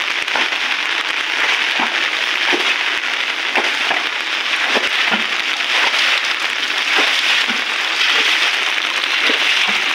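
Rain falling: a steady hiss with scattered faint ticks of drops.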